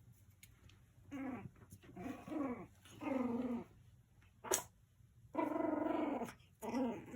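Puppy vocalising in a series of short pitched whines and growls, with one longer held cry about five seconds in. A single sharp click comes midway.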